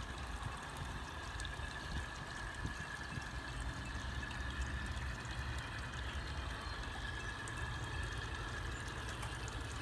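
A G-scale model coal train rolling steadily along garden railroad track: an even running noise over a low rumble, with a faint steady whine throughout.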